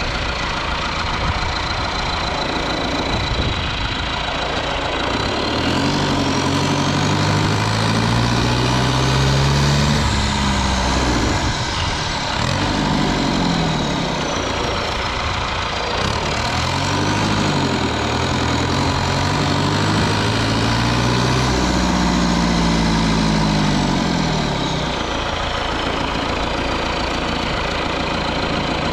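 Cummins 4BT 3.9 L four-cylinder turbo diesel running under load while driving, heard close up from the engine bay. It pulls up in engine speed and drops back twice, each time with a high turbo whistle from the Holset HX30 rising and falling with it.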